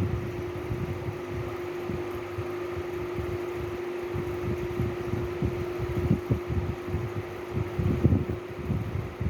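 A steady mechanical whir with a constant hum, like a fan running, under irregular low bumps and rumbles that come thicker about six and eight seconds in.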